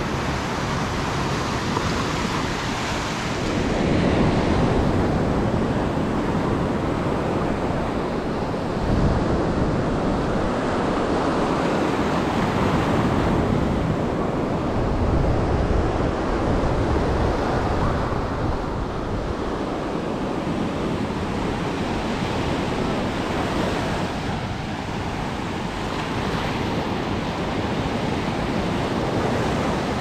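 Small sea waves breaking and washing up a sandy shore, swelling and easing in loudness every few seconds, with wind rumbling on the microphone.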